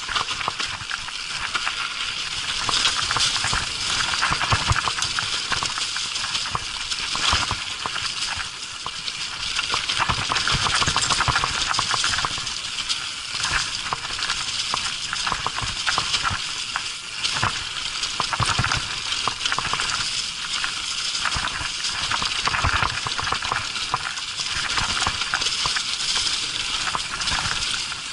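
Mountain bike rolling fast down a leaf-covered dirt trail: a steady rushing hiss of tyres on dirt and dry leaves, with frequent small knocks and rattles from the bike over bumps.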